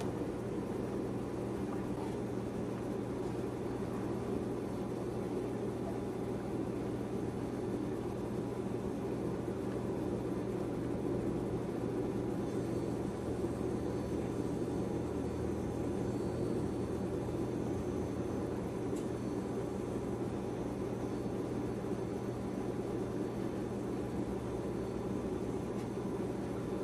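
Steady low mechanical hum under a faint hiss.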